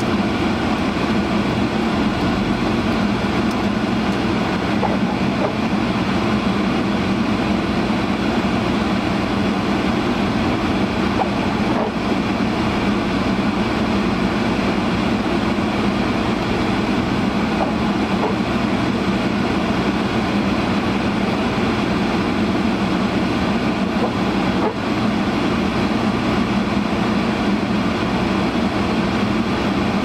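A car's defroster fan blowing at full blast inside the cabin: a steady, loud rushing noise that does not let up, over the sound of the car driving.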